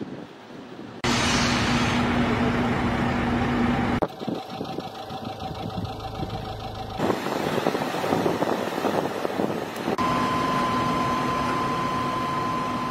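Engines of heavy railway track-building machinery running, in short segments that change abruptly about every three seconds. Some segments carry a steady hum, and the last has a steady high-pitched whine over the engine.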